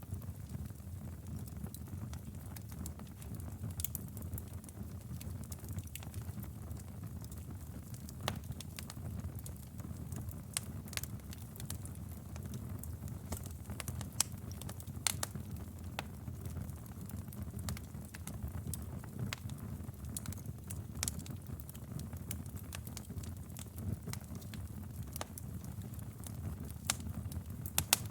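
Wood fire burning steadily with a low rumble, and irregular sharp crackles and pops scattered through it.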